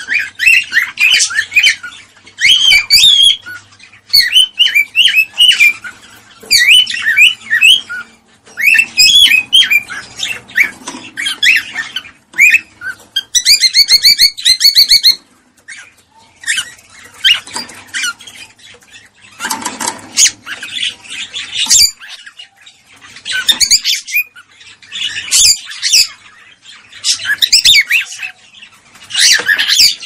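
Cockatiels chirping and whistling in short, quick phrases with brief pauses, with a fast trill about halfway through: cockatiel mating calls.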